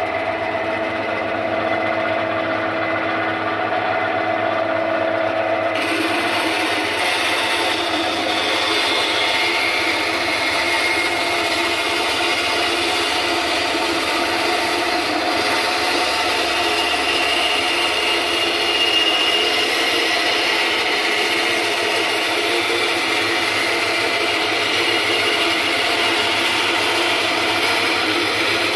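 Aldi Ferrex 10-inch bandsaw running steadily. About six seconds in, its stock blade enters a pine board and cuts a long, thin rip along the fence, a steady cutting hiss over the motor until the end.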